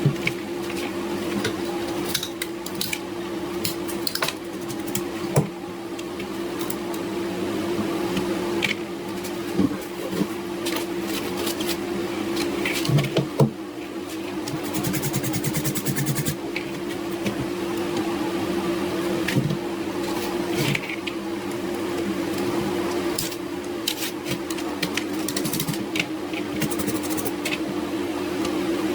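A steady mechanical hum, like a small electric motor running, with many irregular sharp clicks and taps on top. About halfway through comes a brief burst of rapid, even ticking.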